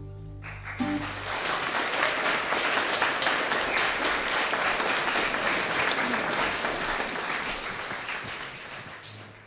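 The last chord of an unplugged acoustic song rings out and dies away, and an audience breaks into applause about half a second in. The clapping carries on steadily and fades out near the end.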